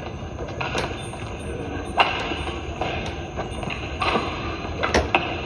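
Badminton rally: rackets striking the shuttlecock in sharp cracks about a second apart, over the steady background noise of an indoor hall, with a few brief high squeaks between the hits.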